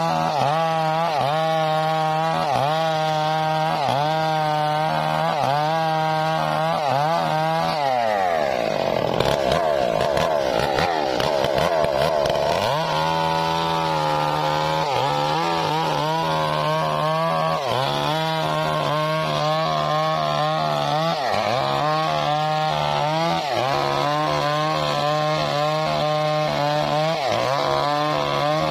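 Stihl MS 381 two-stroke chainsaw cutting through a mahogany log under load, its engine pitch dipping and recovering a little more than once a second. About 8 seconds in the engine drops sharply in pitch and stays low for some four seconds as it bogs in the cut, then picks back up to the same rhythmic dipping.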